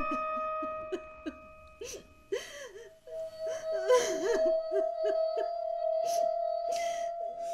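A woman sobbing, with halting whimpers and sharp breaths in, over soft background music holding long steady notes.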